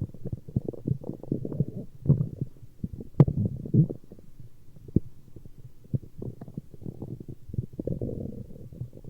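A person's stomach growling: a long, irregular run of low gurgles and rumbles, with one sharp click about three seconds in.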